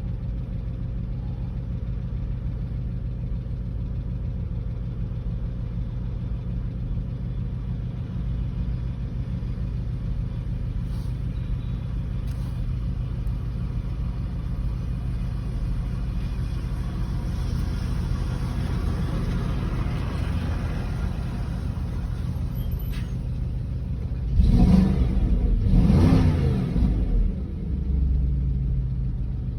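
Porsche Cayenne engine idling steadily after a start, its fast idle just beginning to settle; the owner is checking whether a noise in it is a knock or normal running. A louder burst of rough noise comes near the end.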